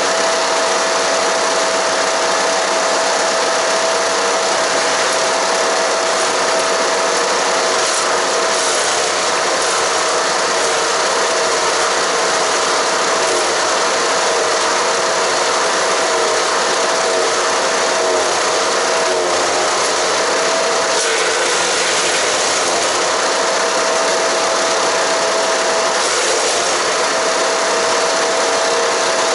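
Haige 15-horsepower wood chipper (HG-15HP-GGS) running and chipping cedar and cypress branches, a loud steady racket of engine and shredding wood. The engine's steady note wavers several times around the middle and drops away briefly about two-thirds through before returning.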